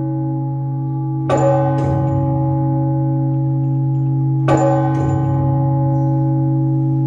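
Orthodox church bell rung for the service: two strokes about three seconds apart, each with a quick fainter second hit, and a long humming ring that carries on between them.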